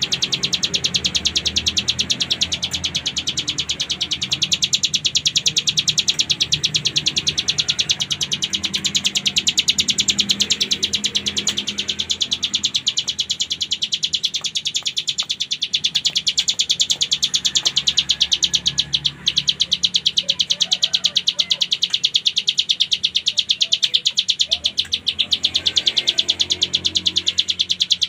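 A ciblek gunung (hill prinia) singing an unbroken, very fast trill of high repeated notes, the rattling 'ngebren' song with 'cililin' phrases and an imitation of a kapasan's 'tembak' call. There is one brief break about two-thirds of the way through.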